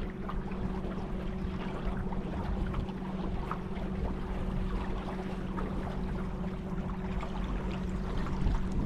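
Water trickling and splashing against a small boat's hull as it moves along the river, over a steady low hum.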